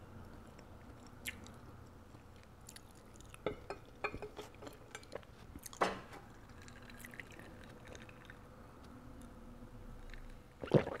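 Faint chewing and small clicks. About halfway through there is a sharper tap as a duck egg is set down against a ceramic dish. Near the end ice clinks in a glass during a sip.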